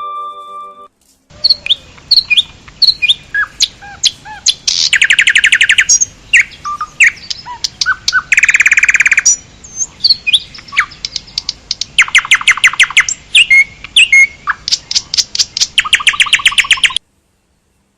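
Birds chirping and calling: many short separate chirps, broken by several rapid trills of fast repeated notes lasting about a second each. The calls stop abruptly near the end.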